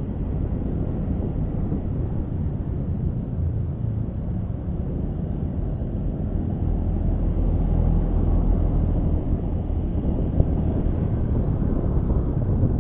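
Riding sound of a Honda Scoopy scooter: wind rushing over the microphone on top of the engine's steady low drone, with the low rumble swelling a little about seven seconds in.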